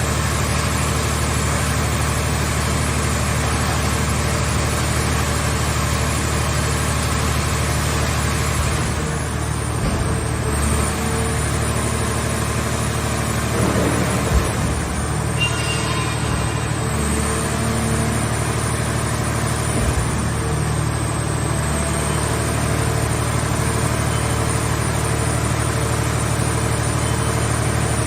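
Hydraulic scrap car-shell baler's power unit running steadily, with a few brief knocks partway through.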